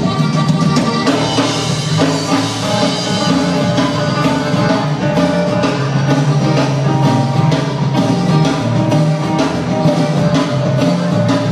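A live band playing dance music, with a drum kit keeping a steady beat and guitar.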